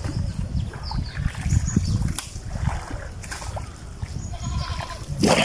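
River water splashing and trickling in a strong current beside a wooden boat, over a low uneven rumble, with a few short faint calls in the background.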